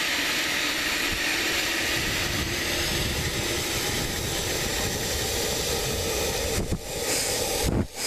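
Water running steadily into a bucket, an even rushing hiss as it fills, dipping briefly twice near the end.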